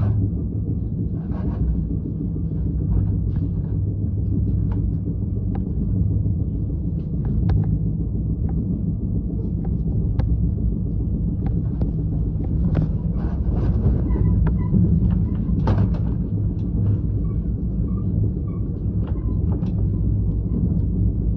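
A steady low rumble with scattered light clicks and knocks over it.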